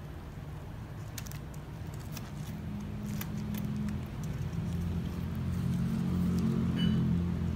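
Light clicks and rustles of hands wrapping wire around the branches of a small potted ficus, over a steady low motor-like rumble that swells near the end.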